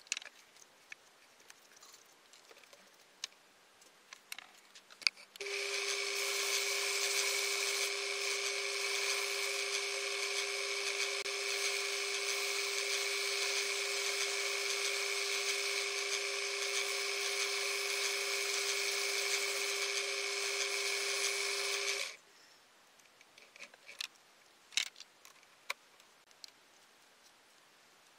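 Small metal lathe switched on, running at steady speed with a constant high whine for about sixteen seconds, then switched off and stopping abruptly. Light clicks and knocks of the chuck being handled come before and after.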